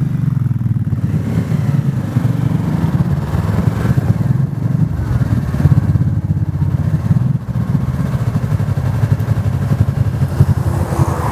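Yamaha motorcycle engine running steadily while the bike is ridden at road speed, heard up close from the handlebars. The engine note dips briefly about seven and a half seconds in.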